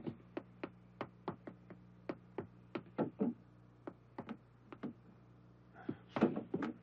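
Light knocks and taps, about three a second, from furniture doors and objects being handled in a hurried search, over a steady low hum. A louder cluster of bumps and scuffling comes about six seconds in.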